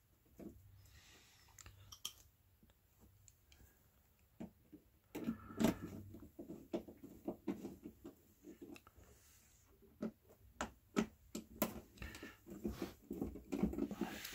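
Irregular clicks, taps and light clatter from the metal hinge parts and door of an oven being handled during reassembly, busier and louder from about five seconds in.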